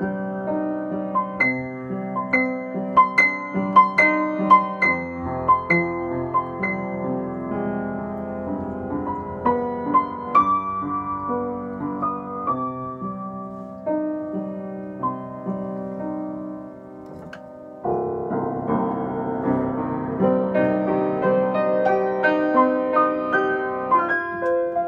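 Solo piano improvisation: a right-hand melody over left-hand chords cycling through C minor, F minor and G major. It softens briefly about two-thirds of the way in, then comes back fuller and louder.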